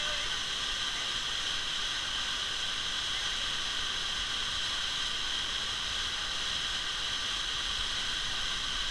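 Waterfall cascading into a canyon pool, a steady rushing hiss of falling water.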